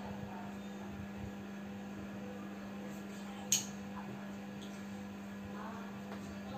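A steady low hum with faint room noise, and a single sharp click about three and a half seconds in.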